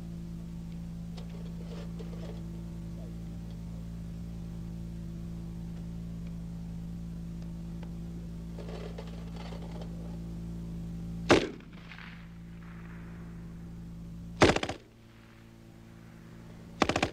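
German MG-34 machine gun firing three short bursts, about three seconds apart, the first about two-thirds of the way in and the last right at the end, over a steady low hum.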